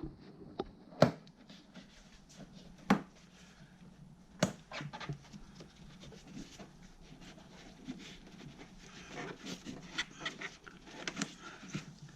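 Scattered sharp clicks and knocks of hand work on engine-bay parts: hard plastic and metal pieces being handled and fitted, a few louder knocks in the first half and lighter ticking later.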